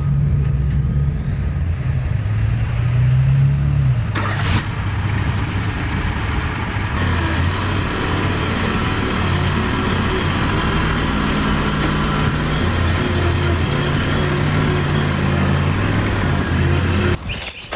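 Stump grinder's engine running, its pitch rising over the first few seconds, with a sharp knock about four seconds in. The engine shuts off abruptly near the end.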